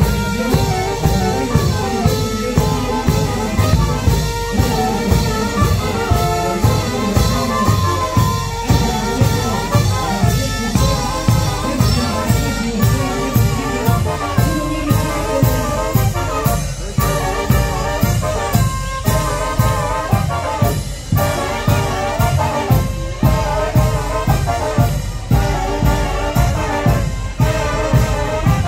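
Brass band of trumpets and trombones playing carnival music over a steady drum beat.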